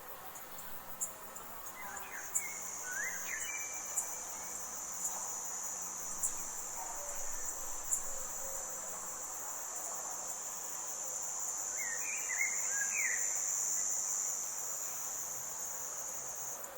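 A high, steady insect trill that starts about a second in and stops just before the end. Brief bird chirps come about two seconds in and again about twelve seconds in, with a few sharp ticks.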